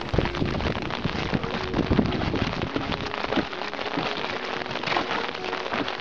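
Rain falling on a lake surface and a small rowboat: a dense hiss of countless small drop ticks.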